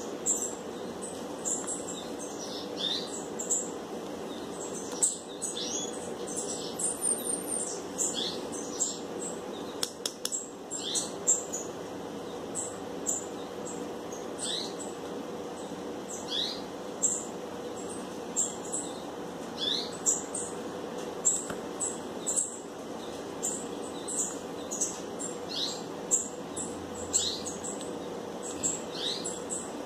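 Small birds chirping, with short rising chirps coming about one or two a second, over a steady low hum.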